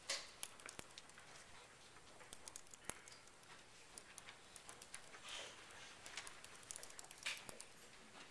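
Faint, scattered clicks and soft rustles in a quiet classroom during a pause, with no voice.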